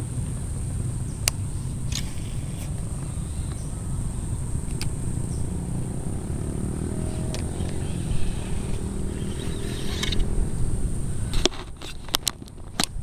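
Wind rumbling on the microphone, with a steady high insect drone. Near the end the rumble drops and there is a quick run of sharp clicks from the baitcasting reel being handled.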